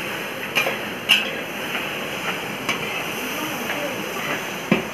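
A long metal ladle stirring chopped onions frying in a large steel wok, scraping and clinking sharply against the pan several times over a steady hiss.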